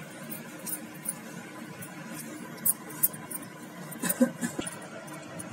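Yellow plastic hinged modak mould handled in the fingers while being greased, its halves giving a few light plastic clicks midway and a small cluster of knocks near the end, over a steady low background noise.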